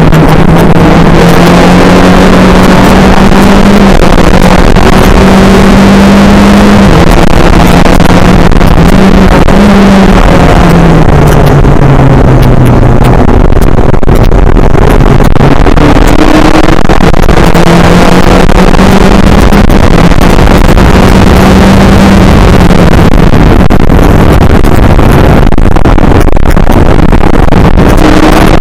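Skip Barber open-wheel race car's engine running hard at racing speed, recorded very loud. Its pitch climbs and drops in steps with gear changes and slides down and back up around halfway through as the car brakes for a corner and accelerates out.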